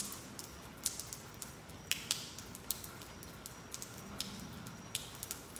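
Water dripping in the rain: scattered sharp taps at irregular intervals, a few a second, over a soft steady hiss.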